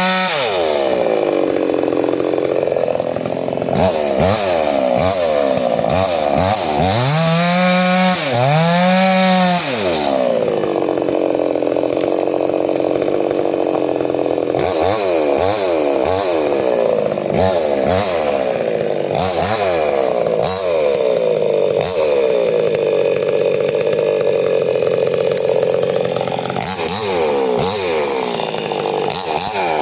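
Chainsaw engine running hard throughout, its pitch dipping and climbing again and again as it revs and bogs, with two deep swoops near the middle, as when the chain is pressed into wood.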